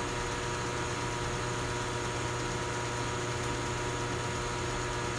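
Steady hum of a neon-tube bombarding setup: the bombarder's high-voltage transformer humming as it holds an arc through the tube during the impurity burn-off, with the vacuum pump running. The sound stays even, with no starts or stops.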